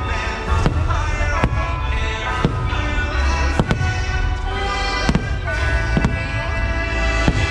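Aerial fireworks shells bursting, about nine sharp bangs roughly a second apart, over the show's music.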